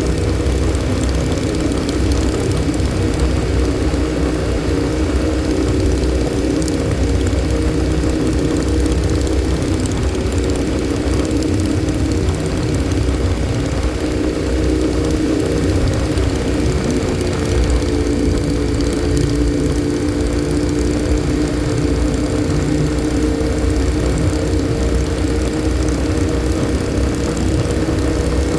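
Motorcycle engine running at steady cruising speed, with wind rush, as heard from the rider's own bike behind its windshield. The engine note sags slightly a little past halfway and then picks up again.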